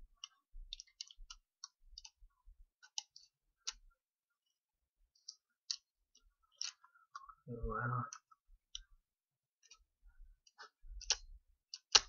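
Irregular small clicks and ticks from a VW Mk5 seatbelt retractor's plastic gears and locking lever as it is handled and the lever is poked with a thin tool. A short murmur of a man's voice comes about eight seconds in, and the clicks bunch up near the end.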